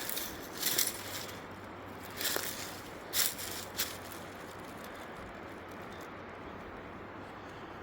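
Footsteps through dry leaves and brush, a handful of uneven steps in the first four seconds, then only a steady faint outdoor hiss once the walking stops.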